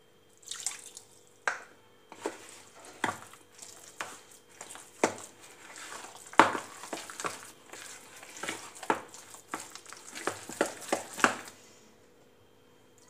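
Steel spoon stirring and scraping thick semolina, curd and water batter in a plastic bowl, with irregular clicks and scrapes that stop near the end.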